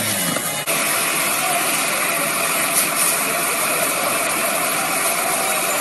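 A burning car's fire, a steady dense crackling hiss, starting abruptly about half a second in.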